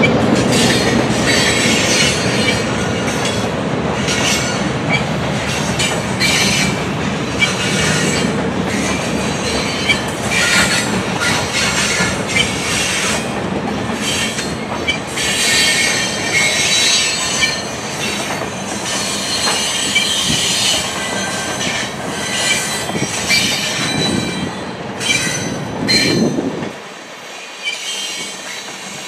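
Freight cars of a long train rolling past on the rails: a steady rumble of wheels on track with clatter and many short high-pitched wheel squeals. Near the end the low rumble drops away abruptly.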